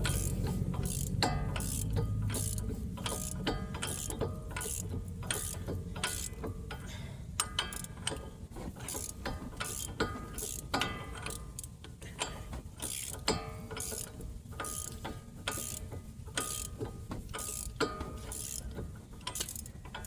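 A hand ratchet clicking in repeated strokes, about one or two clicks a second, as the 15 mm hub-to-knuckle bolts are driven back in with a short socket.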